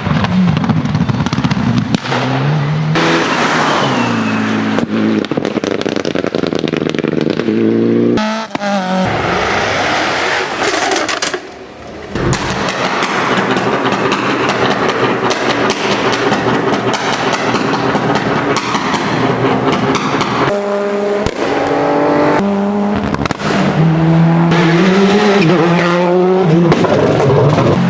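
Race car engines revving hard and changing gear, with rapid sharp exhaust pops and crackles. The sound changes abruptly about 8 and 12 seconds in, as one car gives way to another.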